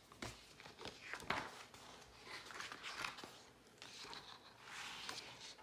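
Faint paper rustling and soft handling clicks as a hardcover picture book is opened and its pages turned.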